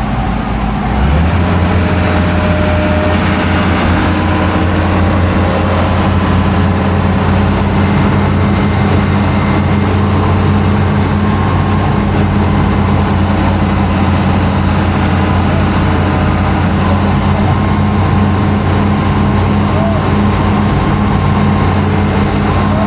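Diesel engine of a bore-pile drilling rig running at a steady speed: a loud, even, deep hum that comes up about a second in.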